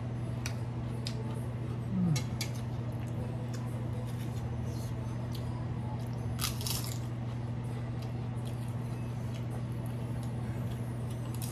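Crunching and chewing as a crisp papad is bitten into, with sharp crackles loudest about six and a half seconds in, over a steady low hum.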